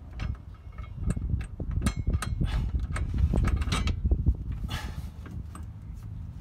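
Irregular metallic clicks and scrapes of hitch hardware, bolts on fish wire, being worked by hand inside the vehicle's frame rail, with a longer scrape about five seconds in, over a low rumble.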